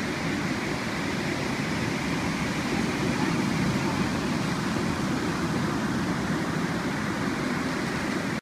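Ocean surf breaking and washing up the sand: a steady rush of water that swells slightly a few seconds in.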